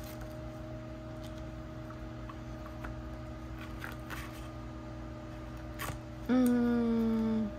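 Faint clicks and rustles of photocards and plastic card sleeves being handled over a steady background hum. About six seconds in, a person makes a held, slightly falling vocal 'hmm' lasting just over a second.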